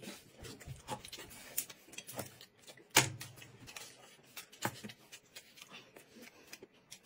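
Light table sounds while eating: scattered clicks and taps of chopsticks against dinner plates, with one sharper knock about three seconds in.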